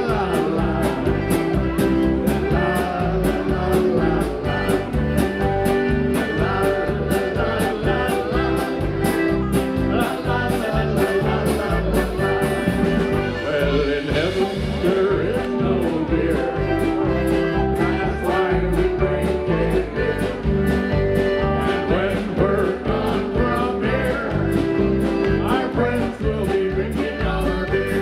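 Live polka band playing, with accordion, keyboard, electric guitar and drum kit keeping a steady beat while a man sings over them.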